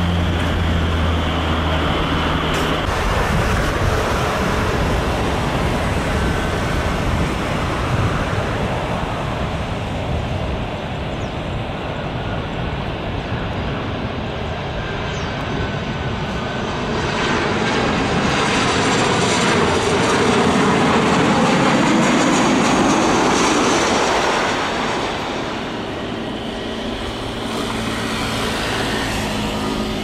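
Jet engines of a Boeing 737-900ER airliner on final approach: a steady rush that grows louder as the aircraft passes close, loudest about two-thirds of the way through, its pitch falling as it goes by, then easing off.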